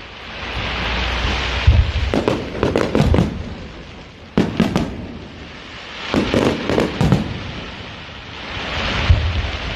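Fireworks display: repeated sharp bangs of bursting shells in clusters of two to four, over swells of hissing crackle.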